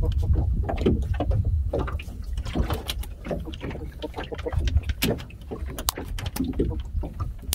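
Steady low rumble of sea and wind around a small open fishing boat, with scattered clicks and knocks as a catfish is worked off a longline hook.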